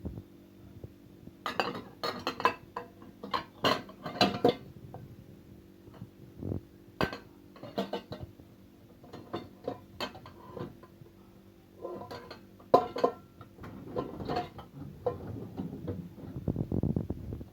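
Dishes and cutlery clinking and clattering as they are handled in a dishwasher's racks, in irregular bursts over a faint steady hum, with a low rumble near the end.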